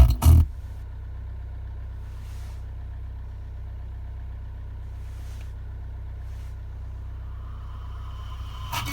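Car multimedia system's audio cuts out about half a second in, leaving only a steady low hum with a few faint swishes for about eight seconds. Loud sound comes back near the end. The dropout is the fault the system is being shown for.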